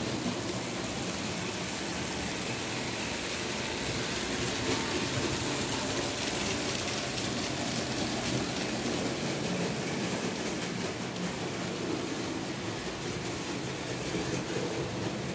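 Märklin H0 model train, a BR 23 steam locomotive model pulling wagons, running steadily on the track: a continuous whirr of the small electric motor and the rolling of metal wheels on the rails.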